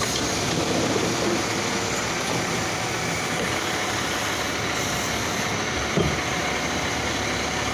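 Steady running noise of a garbage truck close by, with a brief knock about six seconds in; no horn sounds.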